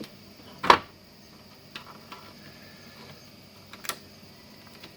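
A few sharp clicks and taps from handling bench power supply leads and connectors: one loud click under a second in, lighter ticks about two seconds in, and another click near the end, over a faint steady high-pitched tone.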